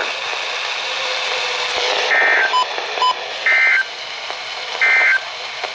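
Emergency Alert System SAME digital data bursts: three short, identical two-tone warbling buzzes about 1.3 s apart, over steady radio hiss. Short bursts sent right after a warning's final line are the end-of-message code that closes the alert.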